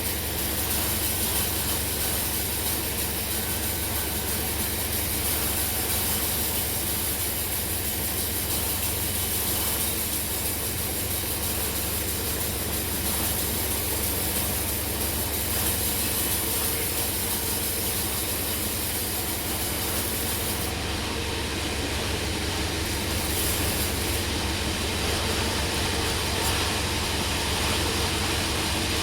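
Sawmill machinery running steadily: an engine's low drone with a fast even pulse under a constant broad hiss.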